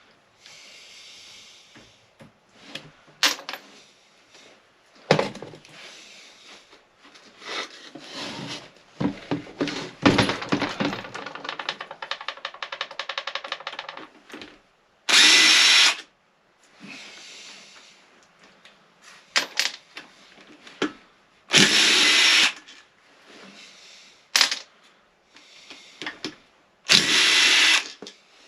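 A power tool running in three short bursts of about a second each, working fasteners on a Yamaha DT250A two-stroke engine being taken apart. Between the bursts come metal tools and parts clinking and knocking, with a few seconds of fast rattling near the middle.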